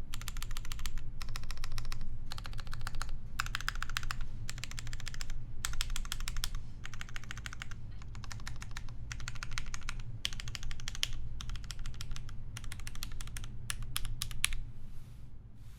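Typing on a polycarbonate Lin Dolphin mechanical keyboard with lubed Cherry MX Vintage Black linear switches on an aluminium plate and GMK keycaps. The keystrokes come in quick runs with short pauses between them, and the typing stops near the end.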